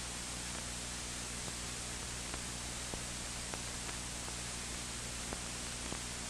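Steady hiss and low hum with a few faint scattered clicks: the background noise of an old film soundtrack, with no narration or music.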